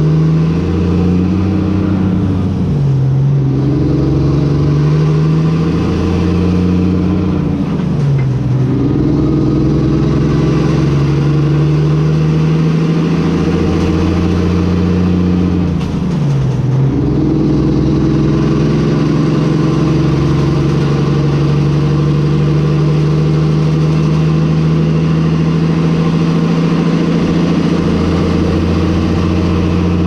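Semi-truck diesel engine pulling a loaded flatbed trailer, accelerating through the gears. Its pitch climbs and drops back at each of three upshifts in the first half, then holds steady at cruising speed.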